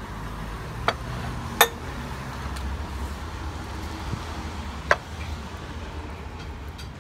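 Three sharp clinks of metal cutlery against a ceramic plate: one about a second in, a louder one soon after, and one near five seconds in, over a steady low background rumble.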